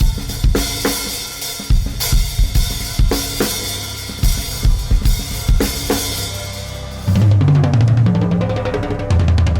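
Drum kit played freely, with kick drum, snare and cymbal strikes. About seven seconds in, the beat gives way to a rapid run of light ticks over a deep held tone that steps between a few low notes.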